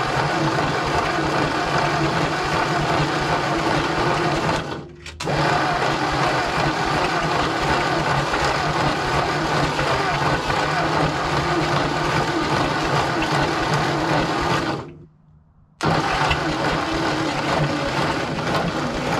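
Starter motor cranking a Ford 8N tractor's four-cylinder engine in three long runs, the first two broken off after about five and ten seconds, with short pauses between. The engine turns over steadily but does not catch.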